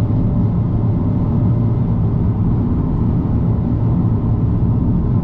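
Car cruising at expressway speed, heard from inside the cabin: a steady low rumble of tyre, road and engine noise.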